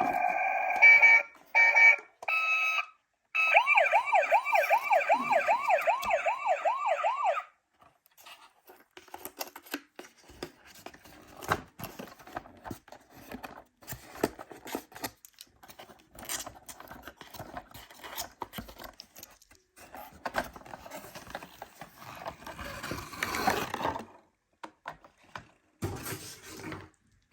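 A toy ambulance's electronic siren: a few short blocks of steady tone, then a fast rising-and-falling yelp about two and a half sweeps a second that cuts off suddenly. After it, the small plastic toy car gives quieter irregular clicks and knocks, in keeping with the miniature rolling on a slope, with a louder rattle near the end.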